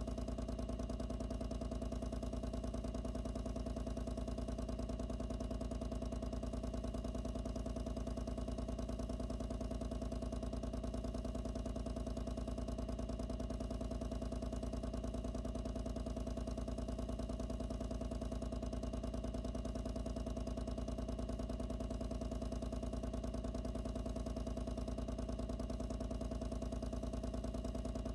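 Pump running steadily, recorded by a microphone inside the box with it: a loud, constant hum with a fast, even pulse and no change throughout.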